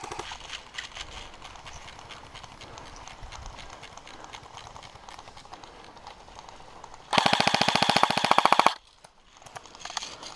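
Footsteps and rustling through long grass for several seconds, then an airsoft gun firing one rapid full-auto burst of about a second and a half, near the end.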